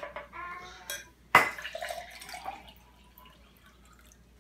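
Drinking glasses handled on a hard tabletop, with one sharp knock of glass on the table about a second and a half in, and water poured from one glass into another.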